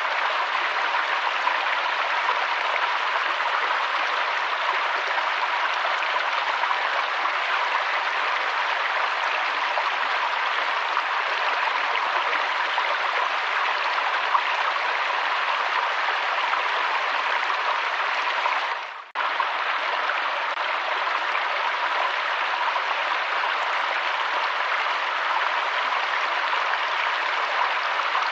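Steady rushing of a waterfall, an even hiss of falling water with no change in pitch. About two thirds of the way through it dips out for a moment and comes straight back.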